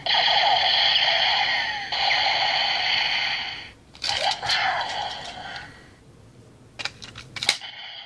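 Electronic sound effects from a Kamen Rider Build toy gun's small speaker, cutting off just before four seconds in, followed by a shorter burst. Near the end come a few sharp plastic clicks as a Full Bottle is pulled out and another snapped into the slot.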